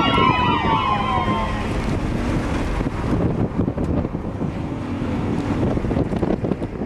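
Tyres squealing in several overlapping, wavering tones for the first second and a half as a BMW corners hard, then the car's engine drone with heavy wind and road rush inside the cabin.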